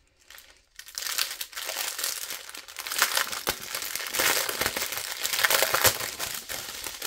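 Plastic packaging crinkling and crackling as a strip of small plastic sachets of diamond-painting drills is handled and opened, starting about a second in.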